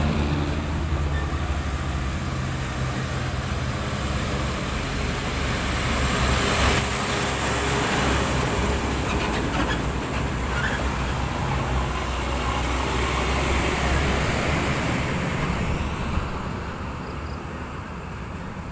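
Heavy diesel truck hauling an excavator on a lowboy trailer passing close by: a low engine drone with tyre and trailer noise that peaks a few seconds in, then fades as the trucks draw away near the end.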